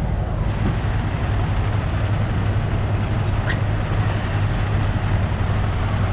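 Semi truck's diesel engine idling steadily, under a steady rush of wind noise.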